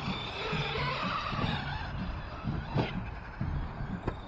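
Battery-electric RC truck's motor whining at full throttle, its pitch rising and falling as it drives across grass, with a sharp knock about three seconds in.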